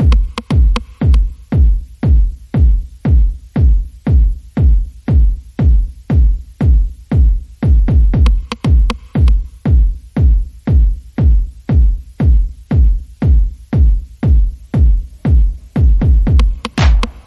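Background electronic music with a steady drum-machine beat, a heavy kick about twice a second.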